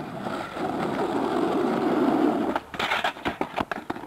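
Skateboard wheels rolling on rough asphalt with a steady rumble. Near the end comes a quick run of clacks and knocks as the rider comes off and the board clatters on the road.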